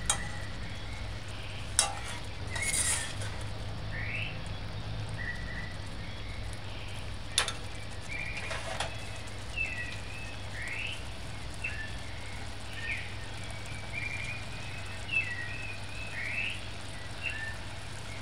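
Thick coconut-milk stew simmering in a stainless steel saucepan, bubbling as it reduces and turns creamy. Through the second half come short high chirps about once a second, along with a few sharp clicks in the first half and a low steady hum.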